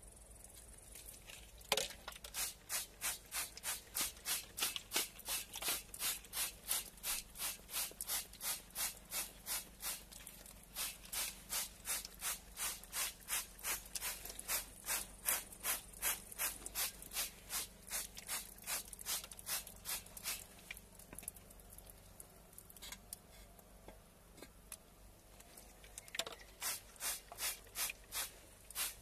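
Hand trigger spray bottles squirting in quick hissing bursts, about two a second, spraying chemical copper-plating solution. There is a pause of a few seconds about three quarters of the way in before the spraying resumes.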